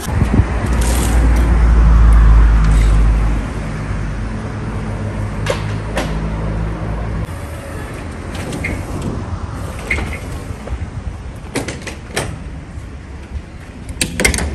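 Large truck running, a steady low drone that is loudest in the first few seconds and cuts off about seven seconds in, followed by scattered clicks and footsteps.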